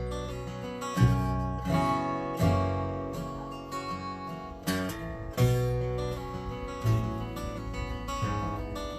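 Acoustic guitar flatpicked in a bluegrass instrumental break, picked melody notes mixed with strummed chords struck roughly once a second.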